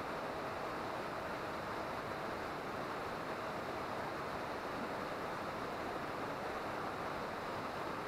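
Waterfall rushing steadily into its plunge pool, an even hiss with no breaks.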